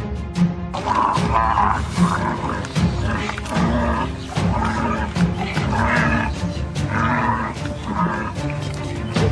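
Background music with a steady low beat, and over it a big cat's roars and snarls in repeated rasping bursts starting about a second in.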